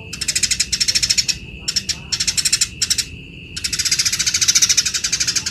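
Eurasian tree sparrows giving harsh, fast rattling chatter in bursts, the aggressive calls of fighting sparrows, with the longest burst in the second half. A steady high tone sounds beneath them throughout.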